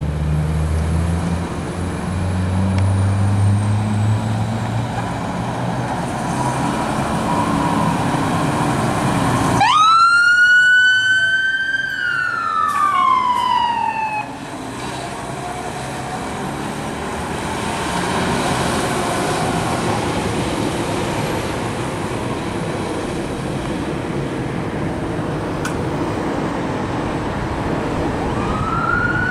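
Fire engine siren on an emergency response. A low rumble comes first. About ten seconds in, the siren winds up sharply to a high wail, holds, and slides back down over a few seconds. It swells again fainter and rises once more near the end.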